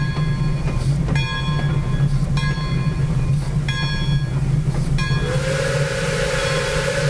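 Steady low rumble of the 2-8-4 Berkshire steam locomotive Pere Marquette 1225 running, with its bell ringing about once every second and a quarter. About five seconds in, the steam whistle starts blowing and holds one steady note with a hiss.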